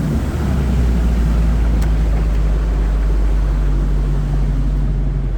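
A 1991 Sea Ray's four-cylinder engine running steadily under way after a carb rebuild and a points and timing adjustment: a loud, steady low drone.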